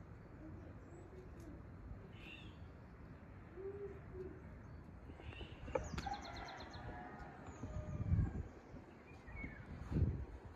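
Birds calling: a dove's low coos and small birds' chirps with a quick trill about six seconds in. Near the end come low thuds of dough being handled and rolled on a wooden board.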